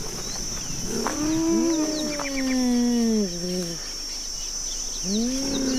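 Big-cat calls from cheetah, leopard and cougar recordings: a short call about a second in, then a long call that falls in pitch, and another starting near the end. A steady high-pitched hiss runs underneath.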